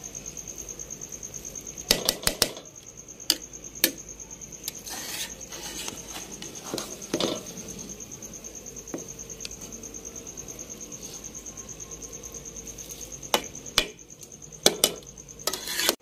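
A metal spoon scraping and clinking against a steel cooking pot as rice is turned over, with sharp knocks in small clusters a couple of seconds in and again near the end. Crickets chirp steadily in the background.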